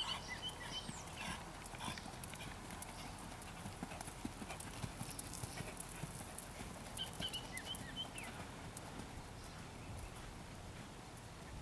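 Horse's hooves beating on sand arena footing at a trot, a run of soft, fairly faint hoofbeats.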